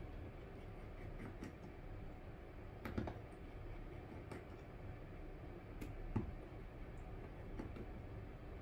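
Sparse small clicks and taps of fingers and a metal tool handling an iPhone 6 display assembly, the loudest about three seconds and six seconds in, over a low steady background hum.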